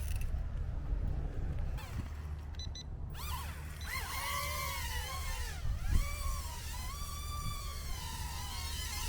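Small electric motors and propellers of a toy drone whirring from about three and a half seconds in, the pitch gliding up and down as the throttle changes, over a steady low rumble.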